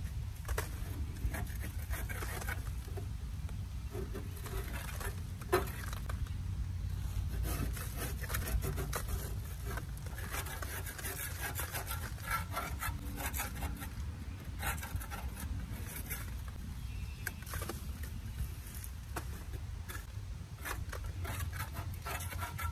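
Hand scraper scraping caked-on, stuck grass clippings off the underside of a metal mower deck in quick, irregular strokes, over a steady low rumble.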